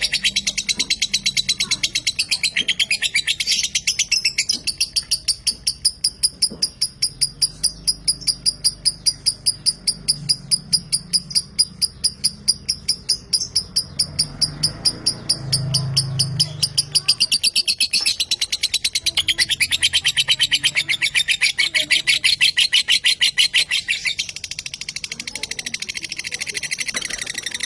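Lovebird chattering in a long, unbroken run of rapid, shrill, high-pitched notes: the sustained 'ngekek' song that Indonesian bird-keepers prize.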